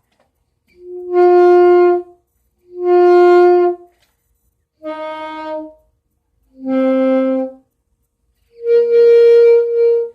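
A beginner playing a single-reed woodwind: five held notes separated by short gaps, the last one the longest.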